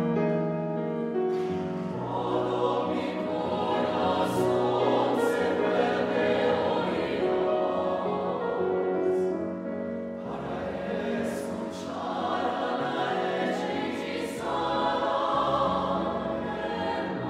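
Mixed choir singing chords in several parts, held notes swelling and fading across phrases, with hissed consonants now and then. New phrases begin about ten and fourteen seconds in.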